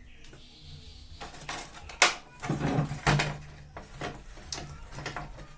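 A series of sharp plastic clicks and knocks from handling parts of a twin-tub washing machine's timer and control panel cover. The loudest snaps come about two and three seconds in, with a short run of rattling between them.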